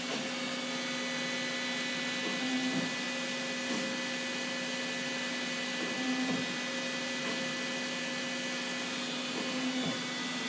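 Hwacheon Hi-Tech 700 CNC lathe running with its spindle turning the chuck: a steady machine hum with several high whining tones over a hiss, swelling briefly a few times.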